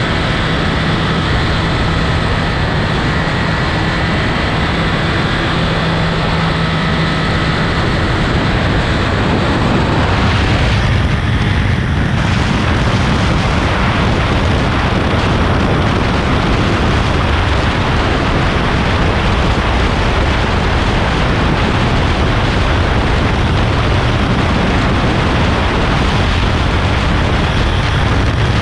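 Heavy wind buffeting on the microphone of a 2022 Triumph Speed Triple 1200 RS ridden at high speed, with the bike's three-cylinder engine droning underneath. The engine's steady note is plain for the first eight seconds or so, then sinks into the wind, which grows louder from about ten seconds in.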